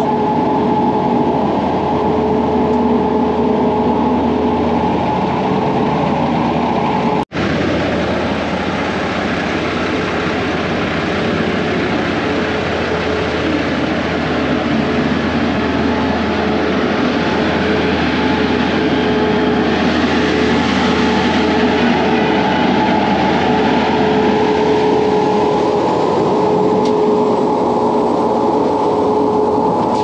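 Heavy diesel machinery of a concrete pour, a concrete pump truck and a ready-mix mixer truck, running steadily with a constant hum. The sound cuts out for an instant about seven seconds in.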